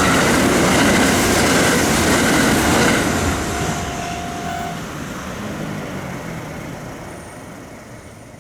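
A train passing close by, loud for about the first three seconds, then fading steadily as it moves away.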